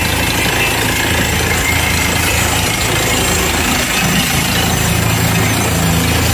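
Borewell drilling rig running: a steady, loud engine drone with dense noise over it. The low tone shifts slightly about four seconds in.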